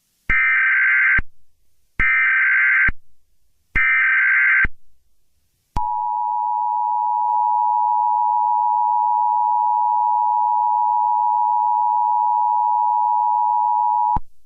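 Emergency Alert System tones: three short bursts of the digital SAME header data, each just under a second and evenly spaced, then the steady two-tone attention signal held for about eight seconds before cutting off sharply. Together they announce that an emergency alert message is about to be read.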